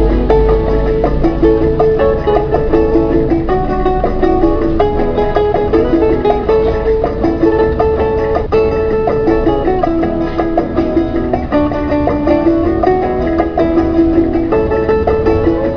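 Instrumental background music played on plucked strings, a quick run of short notes.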